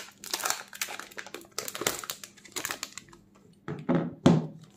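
Thin protective plastic film being peeled off a smartphone's back and crinkling in the hands, in irregular crackles. Near the end come two louder knocks as the phone is set down on a wooden tabletop.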